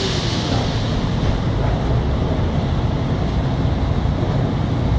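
Loud, steady machinery rumble of a working land drilling rig, heard from the rig floor. A hiss of escaping air fades out within the first second.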